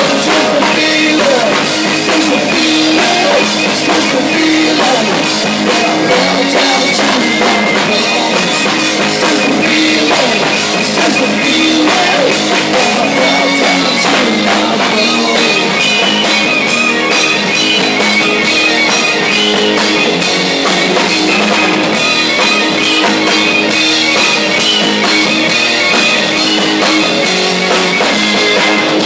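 Live rock band playing loud: electric guitar, bass guitar and drum kit, with keyboard, driving a steady beat.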